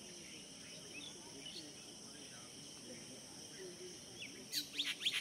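Steady high drone of insects with faint scattered bird chirps; near the end a bird starts a loud, quick run of repeated whistled calls.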